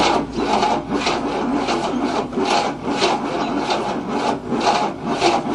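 A 1967 Cadillac's 429 V8 being turned over by its starter. It cranks in an even chug of about four beats a second and does not fire, starting abruptly. The cranking is slow on a weak battery, and the men suspect the ignition timing is advanced.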